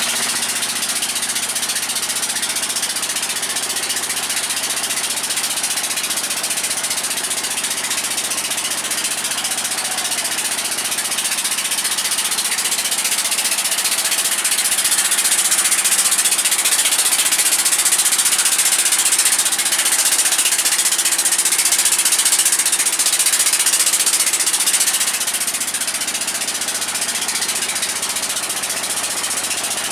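Engine of a wooden river passenger boat running steadily under way, with a rattle and a strong hiss; it grows louder for about ten seconds in the middle, then eases back.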